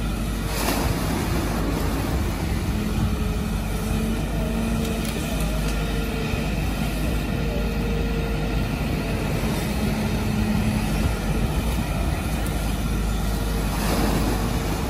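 Kobelco SK200 excavator's diesel engine running steadily under working load, with a hydraulic whine that swells and eases several times as the boom and bucket dig through wet mud.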